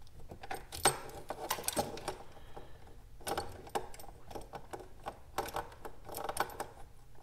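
Small metal clicks and taps in short bunches, a few times, as a bolt and a fog-light bracket are handled and fitted to a motorcycle's crash bar.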